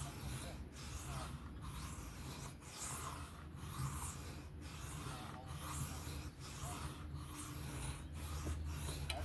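Knife blade being stroked by hand across a diamond sharpening plate in freehand sharpening, a gritty scraping about once a second.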